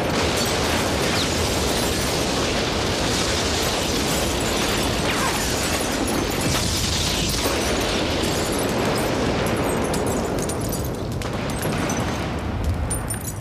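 Building explosion and its aftermath: a loud, even roar of noise with scattered crackles and clatters of debris, holding for about eleven seconds and then fading.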